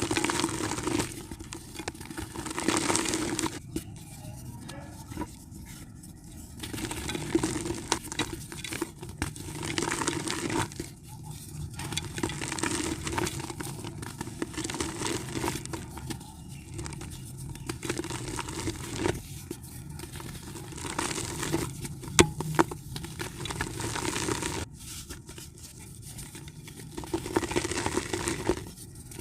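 Soft red dirt being crumbled, giving dry crackling and crumbling in repeated bouts with short pauses between them. There are a few sharper cracks past the middle.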